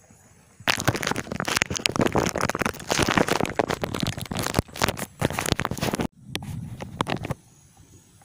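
Loud crackling rustle of handling noise on the phone camera's microphone, full of sharp clicks. It stops abruptly about six seconds in, and a shorter, duller burst follows.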